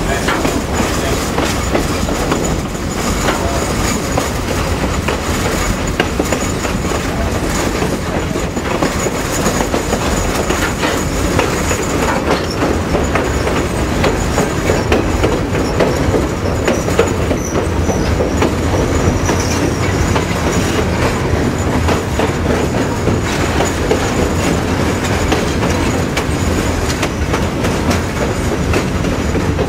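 Passenger train rolling along, its steel wheels running on the rails in a steady rumble dotted with clicks, heard through the open window of the moving car. A faint high wheel squeal runs under it and fades out about two-thirds of the way through.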